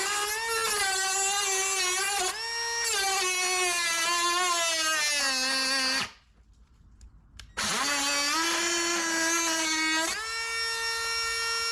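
Handheld electric power tool whining under load, its pitch wavering and sagging as it works the material. It cuts off about six seconds in, spins back up a moment later and settles to a steady whine.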